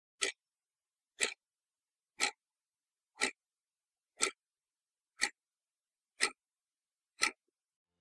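Clock-ticking sound effect: eight short, sharp ticks, one each second, with dead silence between them.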